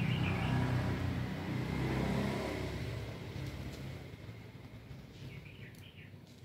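Low engine rumble of a motor vehicle going by, fading away over the first four seconds. A bird chirps briefly at the start and again near the end.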